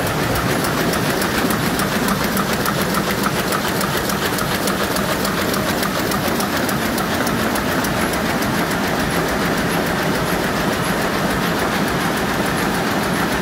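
Heidelberg Speedmaster SM74 five-colour sheetfed offset press running, a steady mechanical clatter with fast, even ticking over a constant hum.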